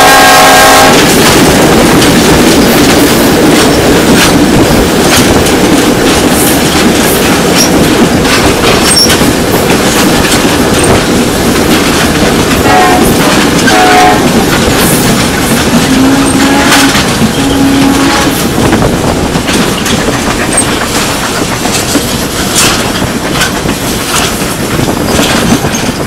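Union Pacific passenger train passing at speed. The diesel locomotive's horn ends about a second in, then comes the steady rush and clickety-clack of the passenger cars' wheels on the rails, fading somewhat near the end as the train moves away.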